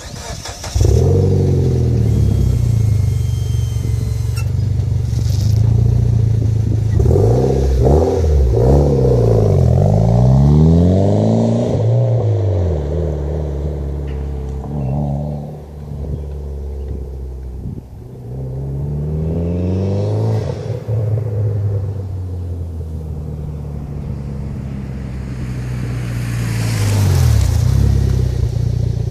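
Mitsubishi Lancer Evolution X GSR's turbocharged 2.0-litre four-cylinder, breathing through an Ultimate Racing dual-exit cat-back exhaust with twin mufflers and an ETS high-flow cat, starting about a second in and idling. It is revved in quick blips several times, the pitch rising and falling back to idle each time.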